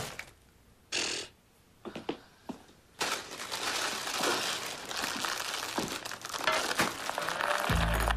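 A few soft knocks, then the steady crinkling rustle of a popcorn bag as popped popcorn is tipped out and tumbles into a plastic bowl. Music comes in near the end.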